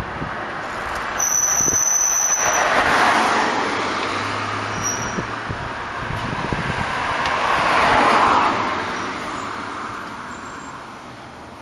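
Passing road traffic: a rushing noise that swells and fades twice.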